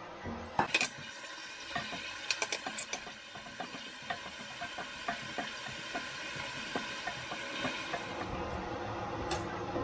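Diced onions sizzling in hot oil in a pot while a silicone spatula stirs them, scraping and tapping against the pot, with sharper clicks in the first three seconds.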